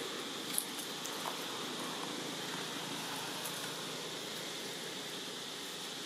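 Steady outdoor background hiss, with a faint tick about half a second in.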